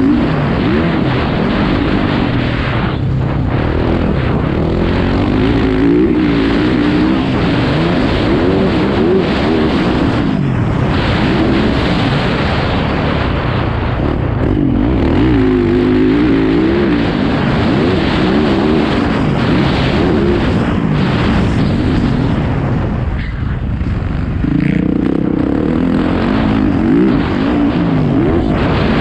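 Motocross dirt bike engine being ridden hard, its pitch climbing and falling again and again as the throttle is opened and eased, heard from a helmet camera with wind rushing over the microphone. Near the end the throttle closes briefly, then the engine pulls again at a higher pitch.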